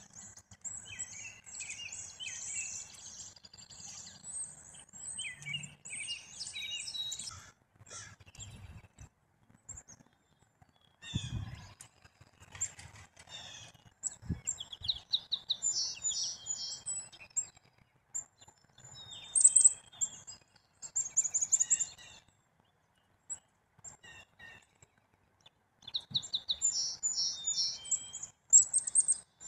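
Small songbirds calling and chattering in repeated bursts of high chirps, busiest at the start and again in the second half. A couple of low thumps come around the middle.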